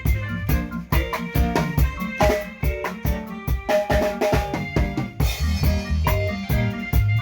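Live band playing during a sound check: drum kit with kick and snare keeping a steady beat, with bass and keyboard notes over it.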